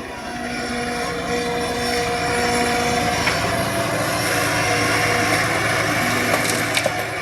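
Excavator's diesel engine running steadily, with a hum of steady tones over mechanical noise.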